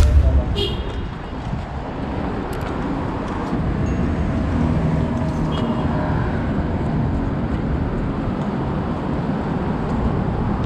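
Steady low rumble of vehicle traffic, with a bump right at the start.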